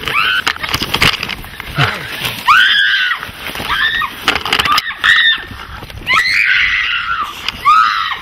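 People screaming and yelling: a string of short, high-pitched cries that rise and fall in pitch, coming about every second and overlapping near the end, over scattered knocks and scuffling.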